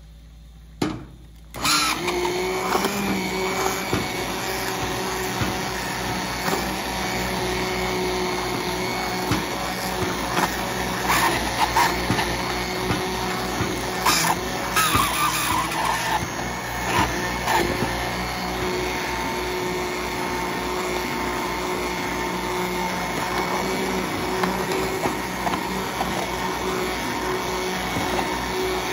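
Immersion blender running in a saucepan of kabocha squash soup, puréeing it: a steady motor whine with sharp clicks now and then. A short knock comes just before it switches on about a second and a half in, and it cuts off near the end.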